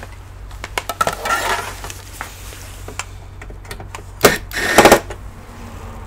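Hard plastic clicking and clattering as a small plastic cover is handled, with a brief scrape a little over a second in, then a sharp knock about four seconds in and a short loud rattle just after it.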